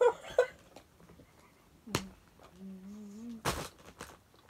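A person eating gives a short, wavering closed-mouth "mmm" of enjoyment, set between a sharp click and a brief crackle, with a few small clicks of eating.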